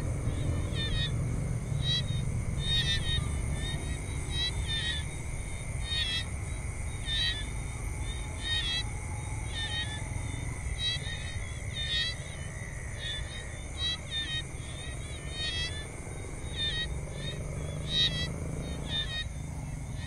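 Tropical jungle ambience: a steady high drone of insects with short chirping calls repeating about once a second, over a steady low rumble.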